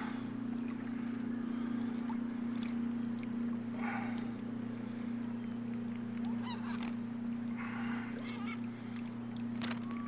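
Gulls calling, a scatter of short yelping calls that start about two-thirds of the way in and grow more frequent toward the end, as the flock is approached. A steady low hum runs underneath, and three brief splashy rushes about four seconds apart match kayak paddle strokes.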